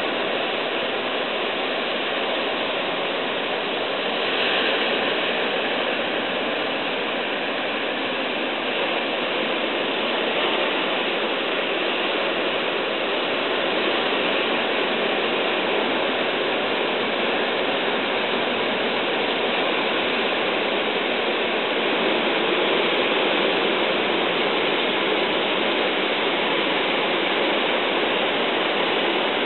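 Ocean surf breaking, a steady wash of water noise.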